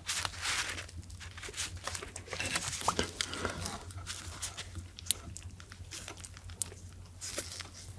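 Close-miked eating: chewing and mouth sounds with many small crackles and clicks, crunchy food being bitten and handled.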